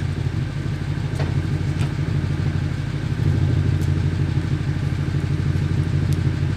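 BMW 550i Gran Turismo's twin-turbo V8 with its muffler deleted, running steadily from cold, heard close to the exhaust tip as a deep low rumble. It gets a little louder about three seconds in as the revs are raised toward 2,000 rpm.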